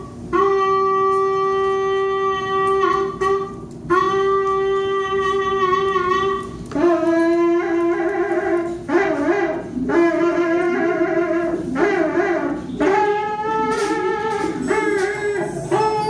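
Experimental jazz band playing live: two long held notes, each about two and a half seconds, then a run of shorter notes that waver and bend in pitch.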